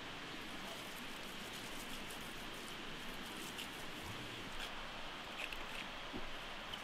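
Faint crackling of a small campfire's damp kindling just catching, a few scattered ticks over a steady hiss.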